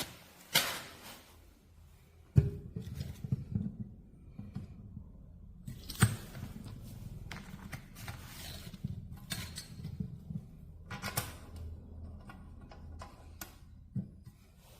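Scattered clicks and knocks of industrial electric fan parts being handled and fitted together during assembly, over a low rumble from about two seconds in until near the end.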